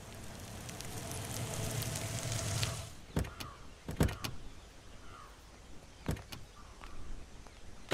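A car drives up, growing louder, and stops a little under three seconds in; then its doors open and shut with several sharp clunks.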